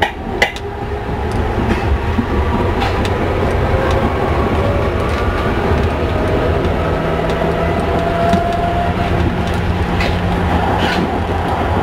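Hamburg U-Bahn DT3-E train running on open track, heard from the driver's cab: a steady rumble of wheels and running gear, a faint motor whine that rises slightly in the middle, and a few sharp clicks of the wheels over rail joints.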